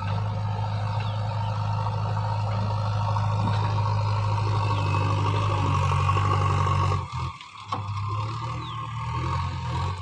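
JCB 3DX backhoe loader's diesel engine running hard under load; about seven seconds in the sound drops away abruptly, a short click follows, then the engine carries on more quietly.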